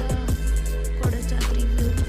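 Background music in an electronic style, with a heavy bass line, falling bass sweeps and sharp drum hits.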